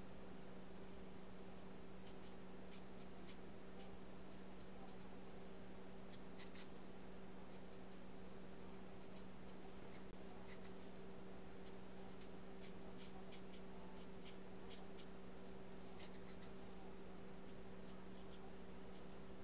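Paintbrush working gouache onto paper: faint, irregular soft ticks and short brushing swishes, over a steady low hum.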